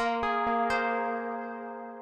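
Arturia MiniFreak synthesizer playing a preset: a run of short notes with sharp attacks, the last about two-thirds of a second in, then a held chord slowly fading.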